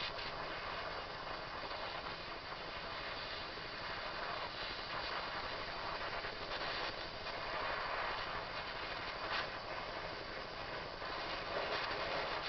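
Small handheld propane-butane torch burning with a steady hiss.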